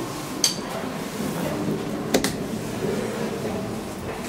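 DEVE hydraulic elevator heard from inside the car: a steady hum, with two sharp clicks, one about half a second in and a louder one about two seconds in.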